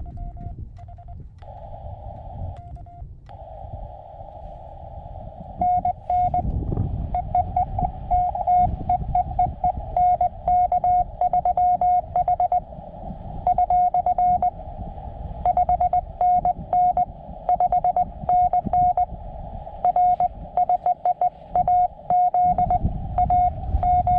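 Morse code (CW) tones from a portable ham radio's speaker: a single mid-pitched beep keyed on and off in dots and dashes inside a narrow band of receiver hiss. The keying is faint at first and turns loud about six seconds in, with a low rumble underneath.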